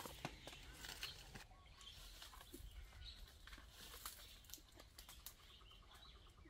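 Near silence, broken by faint scattered rustles and scrapes from someone climbing a tree, with a few faint bird chirps.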